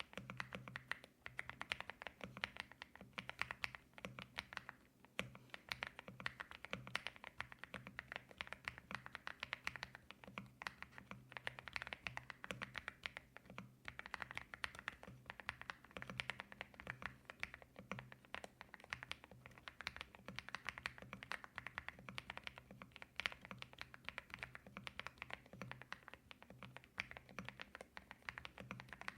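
Continuous fast typing on an MCHOSE X75 V2 mechanical keyboard with stock Hyacinth 45 g linear switches, a rapid stream of rounded, marbly keystroke clacks.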